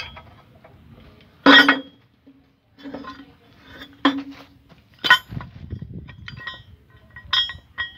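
Steel wrench clinking against the bolts and steel guard of an excavator's track undercarriage during a chain guard repair: a handful of sharp metallic clinks, each ringing briefly, the loudest about one and a half seconds in.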